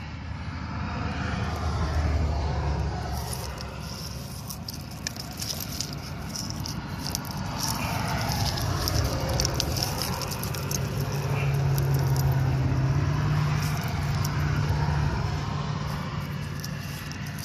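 A low motor-like hum that swells twice, over the small scrapes and clicks of a bare hand probing loose rock and clay in a crevice.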